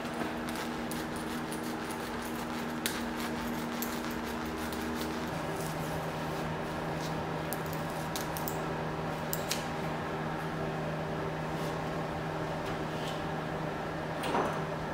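Steady fan-like hum in a garage, its low tone shifting about five seconds in. Over it come faint scattered snips and rustles of scissors cutting, and hands handling a ceramic-fibre insulation blanket. A short louder rustle near the end comes as the blanket is pressed onto the firewall.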